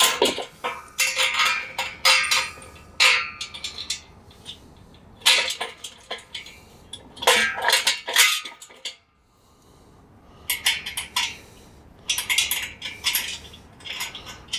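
Bolts and washers clinking and rattling against a light-walled aluminum tube frame as it is fitted together and the bolts are put in by hand. The clinks come in bunches with short pauses between them, and there is a brief lull about nine seconds in.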